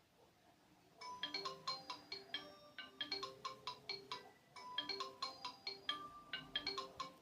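Xiaomi Redmi Note 8 (2021) smartphone ringing with its incoming-call ringtone: a quick, repeating melody of short, bright notes that starts about a second in.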